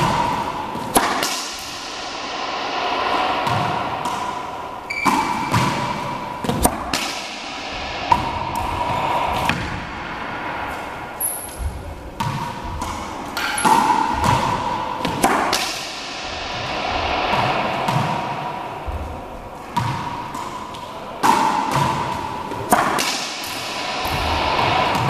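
Racquetball practice: a racquet striking the ball on backhand shots, the ball hitting the front wall and bouncing on the hardwood floor, in clusters of sharp impacts every few seconds. Each impact rings on in the echo of the enclosed court.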